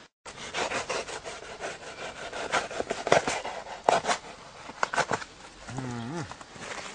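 Irregular rubbing and scraping as hands work material against the leaf-strewn ground, with a short vocal sound about six seconds in.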